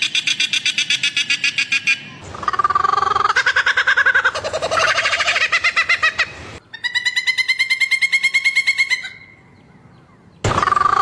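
Bird calls, each a fast run of pulsed notes, in several different calls that change abruptly from one to the next. There is a brief lull about nine seconds in.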